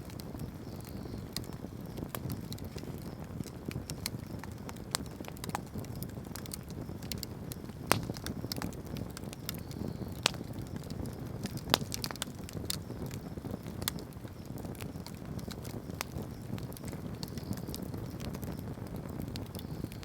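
Wood bonfire crackling, with irregular sharp pops and snaps over a steady low rush; two pops stand out, about 8 and 12 seconds in.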